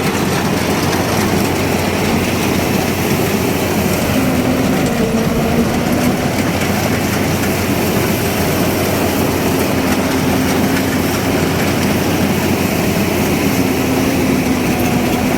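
Rice combine harvester running close by: a loud, steady engine-and-machinery drone with a low hum that comes and goes, as it takes in piles of hand-cut rice.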